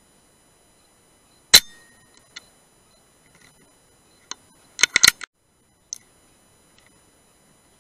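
A single sharp shot from a .177 air rifle about a second and a half in, with a short ringing tail. About five seconds in comes a quick run of four or five loud, sharp clicks and knocks, with a few faint ticks between.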